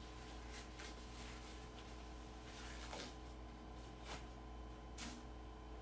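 Quiet room tone: a steady low hum with a few faint rustles and soft clicks scattered through it.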